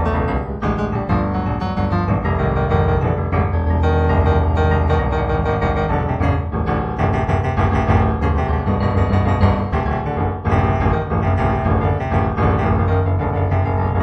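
Solo piano music, an improvised piece with many notes struck in quick succession over held bass notes.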